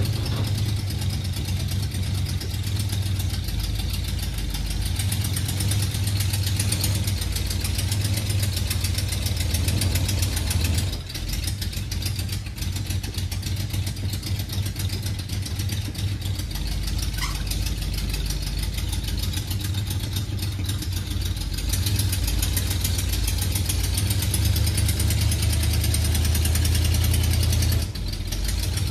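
Dump truck engine running steadily while the truck dumps a load of firewood logs out of its bed, with brief dips in level about eleven seconds in and again near the end.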